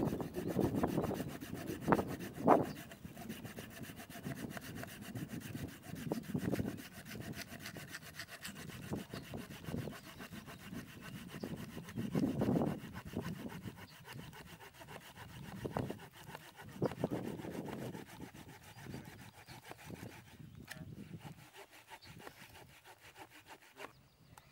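A hand saw cutting through a thin dead log in uneven spells of strokes, with a couple of sharp knocks about two seconds in. It goes quieter near the end.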